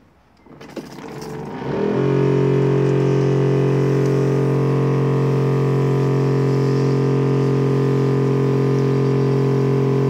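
Electric pump of a backpack sprayer switching on and running with a steady hum, feeding cleaning solution to a pole-mounted applicator. It starts about a second in and is at full, even speed by two seconds in.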